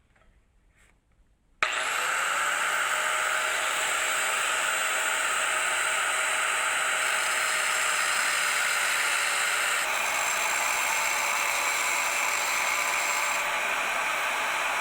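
A power grinder switched on about one and a half seconds in, its whine settling as it spins up, then running steadily, cutting metal.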